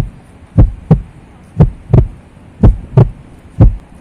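Heartbeat sound effect: deep lub-dub thumps in pairs, about one pair a second, four times.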